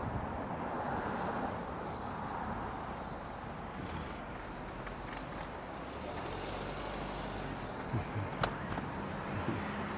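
Road traffic: cars driving past on the street alongside, a steady rush of tyre and engine noise. A single sharp click comes about eight and a half seconds in.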